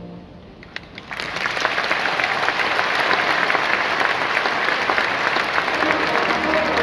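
Large arena audience applauding: a brass band's held chord cuts off at the start, and about a second later the applause swells up and carries on steadily. Band music comes back in under it near the end.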